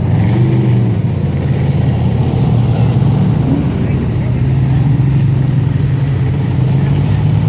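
Car engine running steadily at a low idle, its pitch sagging slightly about a second in and settling again.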